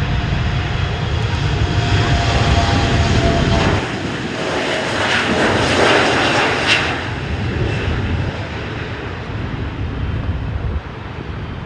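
Airliner engines passing close by, the noise building to a peak about halfway through and then fading away.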